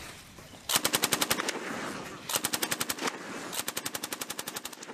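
M240B 7.62 mm medium machine gun firing three short bursts of rapid automatic fire, about ten shots to the second, each burst under about a second long.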